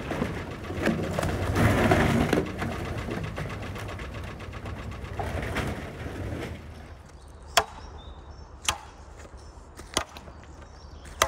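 Thick canal ice crunching, cracking and grinding as a narrowboat's hull breaks through it and pushes the slabs aside. About six and a half seconds in this dies down, and four sharp cracks follow about a second apart as a wooden barge pole is jabbed down through the ice.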